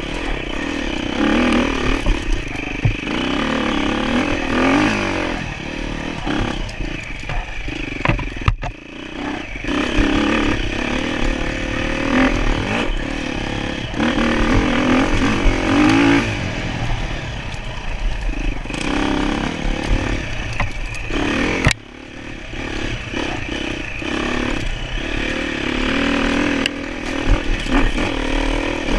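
Off-road enduro motorcycle engine revving up and down as it is ridden, with rattling and knocking clatter throughout. The sound dips briefly about eight seconds in and drops abruptly about 22 seconds in before picking up again.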